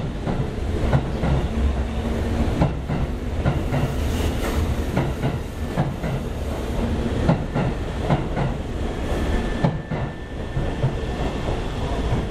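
Hanshin electric train running past a station platform, its wheels clacking over the rail joints in an uneven series of clicks over a steady rumble. A thin steady whine is heard for about a second near the end.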